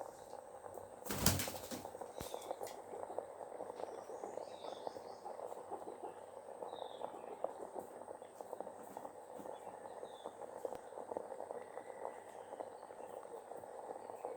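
Kadaknath chickens moving about, a steady crackling rustle full of small clicks, with a brief loud flap about a second in and a few faint high chirps.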